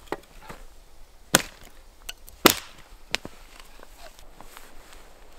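Small hatchet chopping kindling: a few sharp, irregular chops of steel into wood, two of them much louder than the rest.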